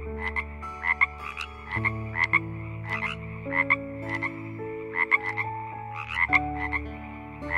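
Frogs calling: short, clicky croaks in quick groups, repeating about once or twice a second, with held notes of background music underneath.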